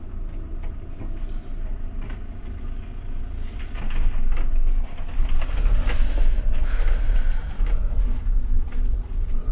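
Camper van's engine and road noise heard from inside the cab as it drives, growing louder about four seconds in.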